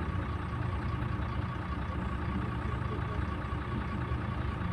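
Güleryüz Cobra GD-272 city bus engine running steadily: a constant low drone with a thin steady high tone above it.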